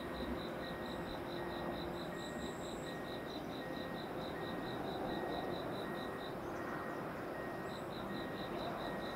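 An insect chirping in quick, even pulses, about four or five a second, which breaks off for a second or so near the end and then starts again. A fainter, slower chirp repeats underneath, over a steady low background rumble.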